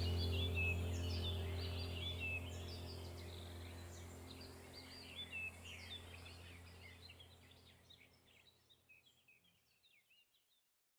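Birds chirping over a steady low hum, the whole fading out slowly to silence near the end.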